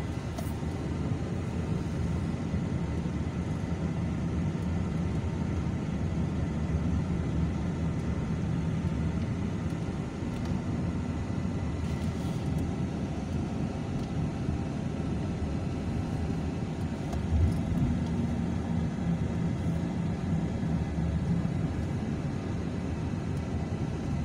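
Steady low road and engine noise inside a moving car's cabin, with a brief thump about seventeen seconds in.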